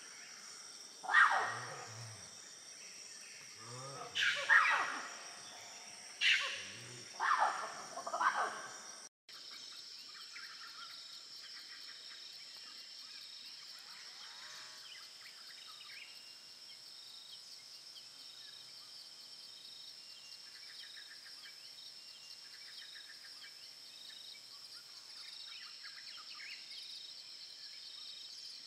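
Tropical rainforest ambience: a steady high-pitched insect drone throughout. In the first nine seconds, about six loud animal calls ring out, each falling in pitch. The calls then cut off suddenly, leaving the insect drone with a few faint chirps.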